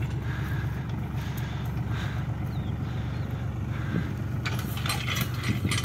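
Hattat tractor's diesel engine running steadily at low revs while its bale loader lifts a hay bale. Near the end there is a short spell of rustling and clattering.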